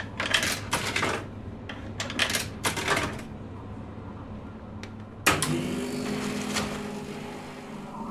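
Sound effect of a machine clattering and knocking in quick irregular bursts for about three seconds, standing for the refrigeration pump breaking down. About five seconds in, a sudden hiss with a steady low hum begins and slowly fades.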